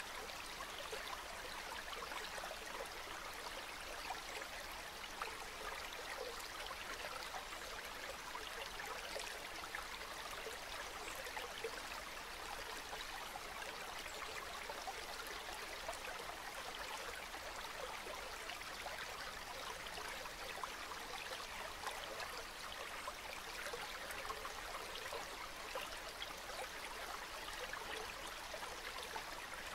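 Calm river water flowing steadily, an even rushing babble with fine trickling detail and no breaks.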